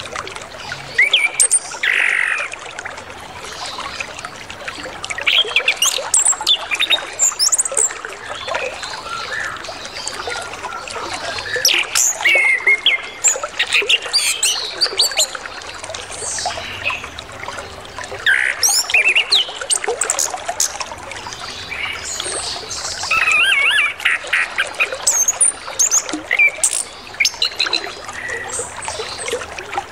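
Orange-headed thrush singing a full, varied song of quick whistled and chattering phrases in bursts every few seconds, over steadily flowing water.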